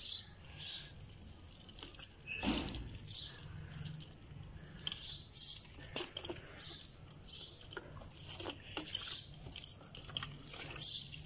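Water flicked by hand onto bare soil, dripping and pattering in small splashes, while small birds chirp repeatedly.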